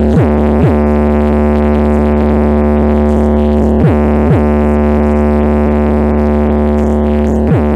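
Bass-heavy electronic music played loud through a car sound system with two 15-inch subwoofers: a held deep bass drone broken by quick falling pitch drops, in pairs near the start and about four seconds in, and once near the end.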